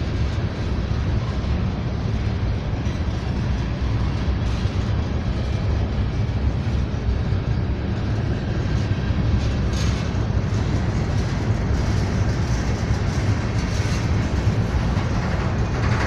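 Freight train rolling past: a steady rumble of wheels on rail, with a few sharper clacks about ten seconds in.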